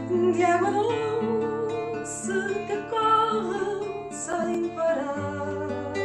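Background music: acoustic guitar with a sung melody line that wavers in vibrato.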